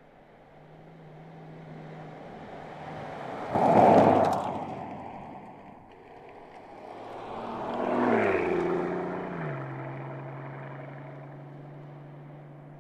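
Mercedes-Benz S 65 AMG Coupe's twin-turbo V12 driving past: a fast pass-by about four seconds in, the loudest moment, then a second swell about eight seconds in where the engine note drops in pitch and settles into a steady hum that fades as the car pulls away.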